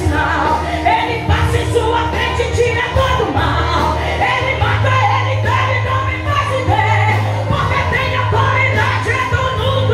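Live gospel praise music: a woman singing into a microphone over a band of keyboard and drums, played through loudspeakers, with a steady low bass line underneath.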